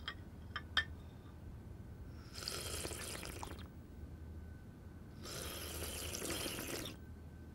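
Hot tea being slurped loudly from a saucer: two long slurps, each about a second and a half. A few light china clinks of cups on saucers come in the first second.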